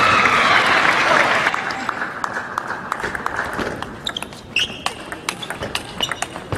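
Crowd applause dying away over the first couple of seconds, then a run of sharp, irregular clicks of a table tennis ball striking the table and bats.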